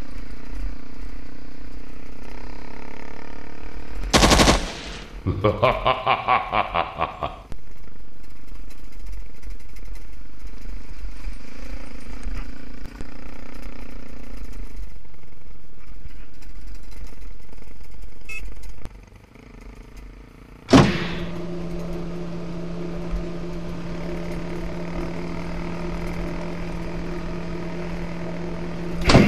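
Motorcycle ride on a gravel road: steady engine and wind noise on the microphone. About four seconds in, a loud bang, then a rapid run of bangs for about two seconds, like machine-gun fire. From about 21 seconds, a steady engine drone.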